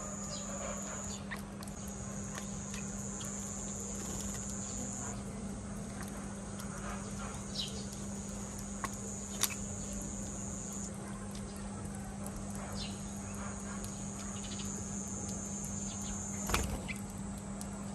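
A steady low hum with a thin high whine under it, with a few faint short sparrow chirps and a handful of light taps, the sharpest near the end.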